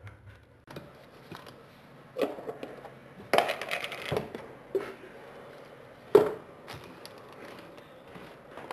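A few scattered knocks and clicks over a low rustling background. The sharpest knock comes about six seconds in.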